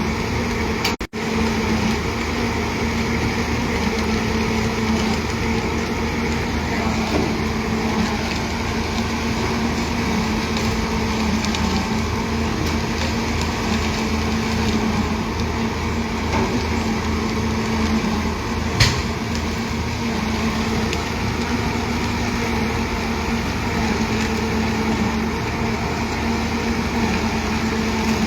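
Heavy diesel machinery running steadily with a constant engine hum and a low pulsing rumble; one sharp click about two-thirds of the way through.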